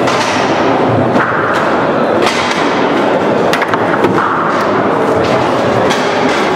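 Foosball played on a Leonhart table: sharp knocks and clacks of the ball and rod-mounted plastic players, about one hit every second, over a steady background noise.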